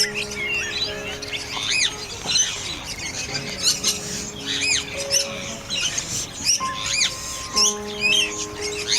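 Birds chirping, with sharp arching calls every second or two, over background music with long held notes.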